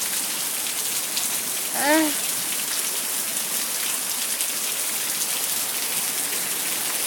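Heavy thunderstorm rain pouring steadily, with a short exclamation from a person about two seconds in.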